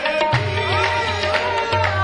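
Qawwali music: tabla strokes keep the rhythm under a steady held drone, while a melodic line glides up and down in pitch.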